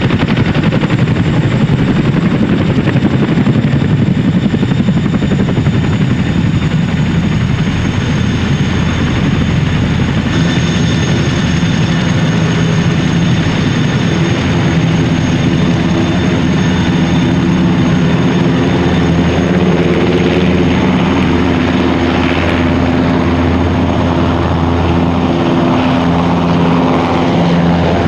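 Boeing CH-47 Chinook tandem-rotor helicopters running loudly, with rapid rotor chop at first. From about ten seconds in a steady turbine and transmission whine and a low hum take over, as a Chinook sits on the ground with both rotors turning.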